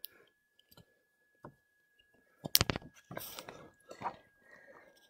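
A hardcover picture book being handled, with one sharp click about halfway through followed by a couple of seconds of soft paper and cover rustling.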